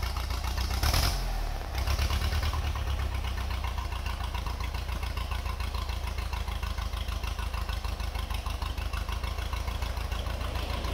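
Old backhoe loader tractor's engine running at a steady idle with an even, rapid firing beat, briefly louder about a second in.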